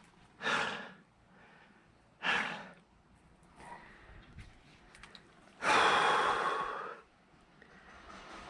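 A person breathing hard from the effort of splitting wood: two short, forceful breaths, then a longer, louder sigh about six seconds in.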